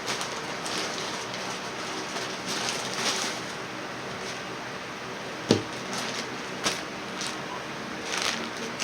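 Rustling and crinkling as a plastic shipping package is handled and opened, over a steady hiss, with one sharp click about five and a half seconds in.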